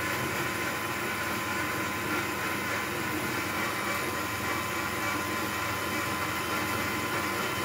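Electric bike motor running steadily under throttle with the bike held still: an even whir with a faint steady whine.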